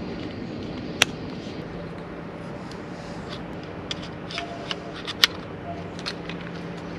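Sharp clicks and clacks of airsoft rifle parts being handled and fitted together, with two louder snaps, one about a second in and one past the middle, over a steady low hum.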